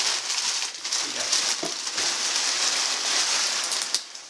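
Steady crinkling, rustling noise with scattered small crackles, like paper or fabric being handled close by. A brief faint voice sound about a second and a half in.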